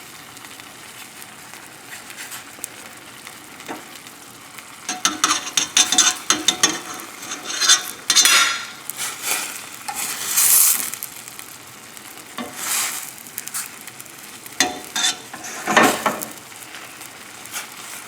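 Chicken cutlets in a pan of white wine and lemon juice sizzling as the sauce reduces. From about five seconds in, a run of irregular scrapes and clatters of a utensil stirring in the pan.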